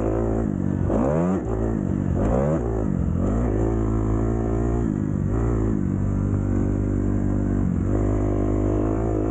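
Dirt bike engine revving hard as it is ridden. The pitch climbs and falls several times in quick succession over the first few seconds, then holds higher and steadier with a few brief drops.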